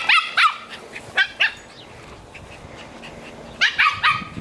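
Small poodle giving short, high-pitched play barks in quick groups: two at the start, two about a second in, and three near the end, each yap falling in pitch.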